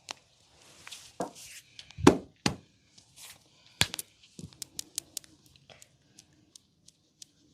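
Hands working over the head and upper body in a massage: rubbing on hair and skin, a few heavy slaps in the first two and a half seconds, then a sharp crack followed by a run of quick small clicks.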